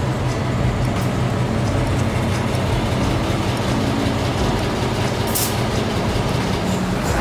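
A de-icer train's diesel locomotive idling with a steady low hum, and a short hiss about five seconds in.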